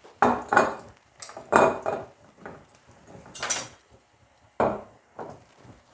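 Kitchen utensils and cookware clinking and knocking: a handful of sharp metallic knocks at uneven intervals, each ringing briefly.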